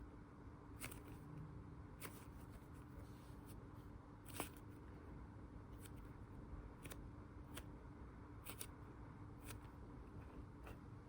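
Faint handling of squishy toys: scattered soft clicks and rustles, with one sharper click about four seconds in, over a low steady hum.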